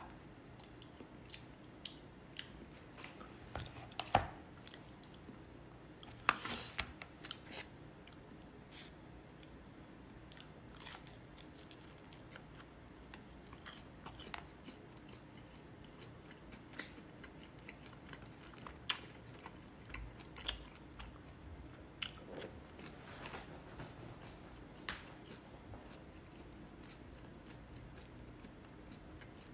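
A person chewing food, with scattered light clicks and taps of wooden chopsticks against a plastic food container. The loudest knocks come about four and six seconds in.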